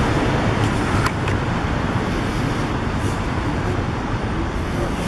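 Street traffic: cars passing with a steady wash of engine and tyre noise and a low engine hum that fades away, plus a couple of light clicks about a second in.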